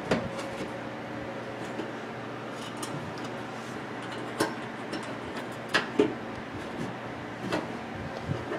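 Light clicks and taps of an inline fuse holder and its wire leads being handled and fitted inside a microwave oven's sheet-metal cabinet: about half a dozen sharp clicks spread out, the loudest two close together around six seconds in, over a steady faint hum.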